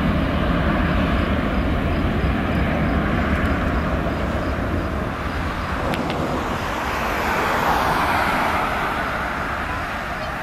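Airbus A330-300's twin jet engines at takeoff thrust during the takeoff roll: a steady jet roar with a deep rumble, swelling to its loudest about eight seconds in and then starting to fade.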